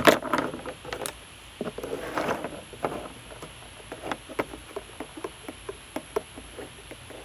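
Someone chewing something hard and crunchy, with irregular crackling crunches: a dense burst at the start and another about two seconds in, then single sharp cracks about two or three a second.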